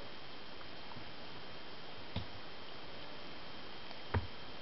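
Quiet night air: a steady hiss with a thin, high, steady whine, broken by two soft ticks about two and four seconds in.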